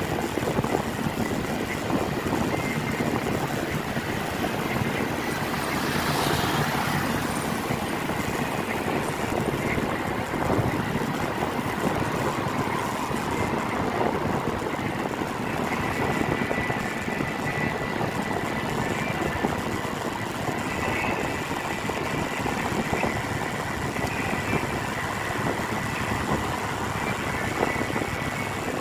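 Road traffic on a rain-wet street: a steady mix of vehicle engines and tyre noise.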